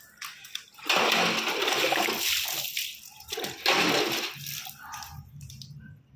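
Water rushing and splashing in bursts: a long one about a second in lasting some two seconds, then shorter ones.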